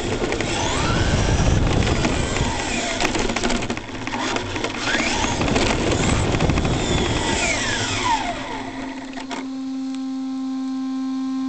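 Brushless motor of an ECX Torment RC truck, heard from a camera on its roof, whining as it drives over asphalt with tyre rumble underneath. The whine rises and falls in pitch with the throttle and sweeps down as the truck slows. After the truck stops, about three-quarters of the way in, only a steady hum remains.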